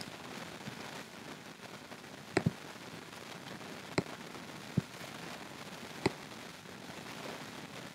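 A few sharp clicks of a computer mouse and keyboard over a steady hiss: a quick pair about two and a half seconds in, then single clicks at irregular gaps.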